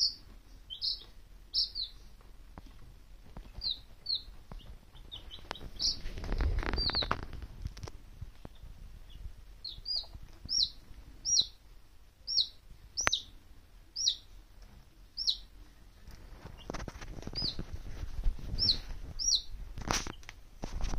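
Baby chicks peeping: single short, high peeps that slide downward in pitch, about one a second. Twice the chicks rustle and scratch about on the pine pellet bedding, with a few light clicks.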